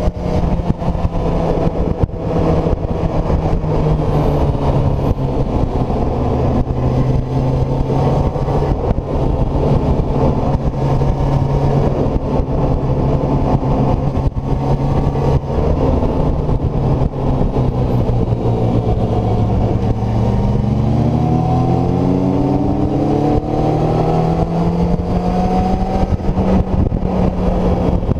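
Kawasaki ZZR600's inline-four engine running hard at high revs, heard from the rider's seat over steady wind noise. About twenty seconds in the revs drop, then climb steadily again.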